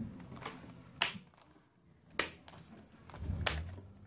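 Replacement keyboard in a Dell Inspiron 3420 laptop being pressed down into its frame by hand: three sharp plastic clicks, a second or so apart, as it snaps into place.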